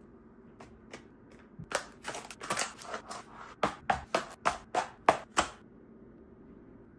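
A quick run of about a dozen sharp taps and clacks, with light rustling between them, as items are handled and set down while restocking; it stops about two thirds of the way through.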